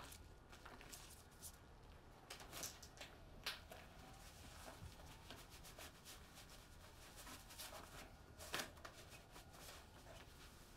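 Quiet room tone with faint, scattered rustles and light clicks of small objects being handled by hand. The loudest click comes about two seconds before the end.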